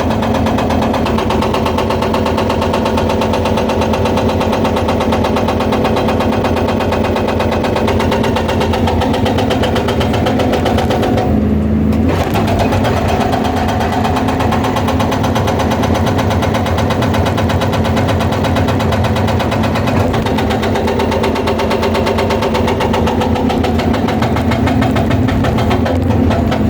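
Excavator-mounted hydraulic breaker hammering stone in a fast, steady stream of blows over the excavator's diesel engine running under load. The hammering stops for about a second roughly eleven seconds in, then resumes.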